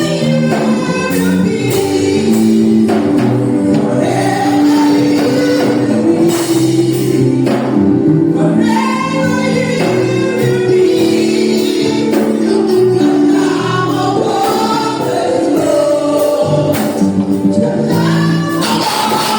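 Gospel music: a choir singing over keyboard chords, with a tambourine.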